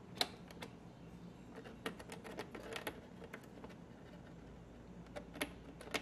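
Sharp plastic clicks and ticks from a Bosch dishwasher's push-buttons being pressed and picked at with a wooden toothpick to free a button stuck with food build-up: one sharp click just after the start, a quick cluster around two to three seconds, and a few more near the end.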